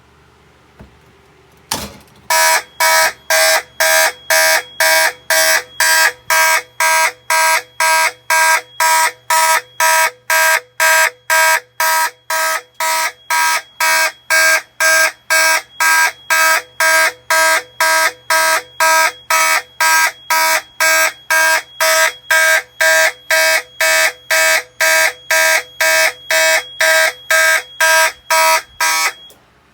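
Fire alarm horns sounding in rapid, even pulses, about three buzzy blasts a second, during a fire alarm system test; they stop near the end. A sharp click comes just before the horns start.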